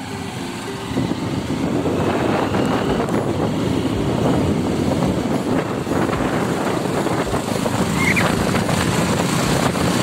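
Wind and engine noise of a moving motorcycle, the wind buffeting the microphone; it gets louder about a second in and then holds steady.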